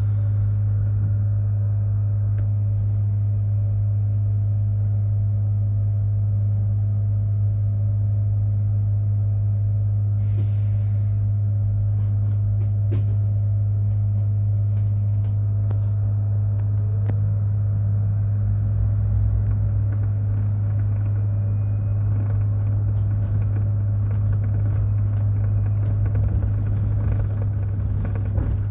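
Mercedes-Benz eCitaro C2 battery-electric city bus giving a steady low hum and rumble, with scattered small clicks and a short hiss about ten seconds in.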